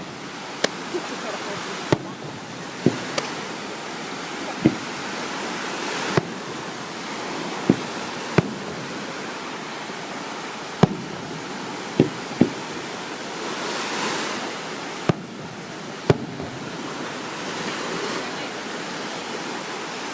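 Fireworks shells going off with sharp bangs at irregular intervals, about a dozen in all, over the steady wash of ocean surf.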